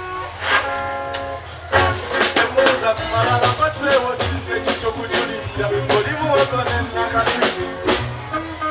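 Live band music with electric guitar and a drum kit: held chords at first, then the drums come in about two seconds in with a run of quick hits under a busy melody line.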